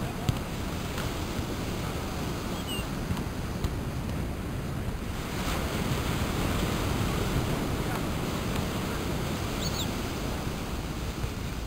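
Ocean surf washing onto a sand beach, a steady rushing noise that swells a little about halfway through, mixed with wind rumbling on the microphone.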